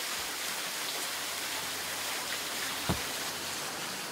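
Steady hiss of running water, with one soft thump about three seconds in.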